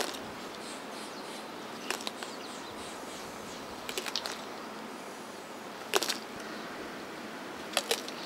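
Pinta Island giant tortoise biting into a prickly pear cactus pad: short, sharp crunches about every two seconds, a few coming in a quick cluster, over a steady faint outdoor hiss.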